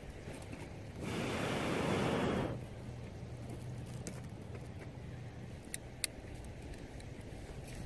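A person blows a long breath onto a small twig fire, a steady rush of air lasting about a second and a half, to feed the flames under a metal mug of water. A few sharp crackles from the burning wood follow.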